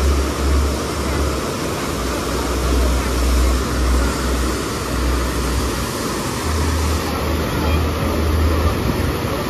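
Artificial wave surfing platform: a steady rush of pumped water sheeting up the sloped riding surface, with a low rumble that comes and goes.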